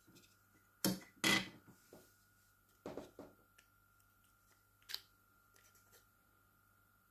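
Handling noises from taking apart a Kemei KM-2296 hair clipper: a few short clicks and scrapes of small plastic and metal parts, the loudest two about a second in, over a faint steady high hum.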